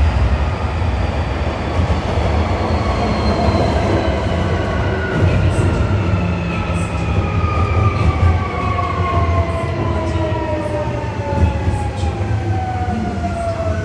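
Osaka Metro 1300 series train heard from inside the car: the Toyo IGBT inverter motor drive whines in several tones that slide steadily down in pitch as the train slows, over a constant low rumble of wheels on rail. Near the end a new steady tone sets in.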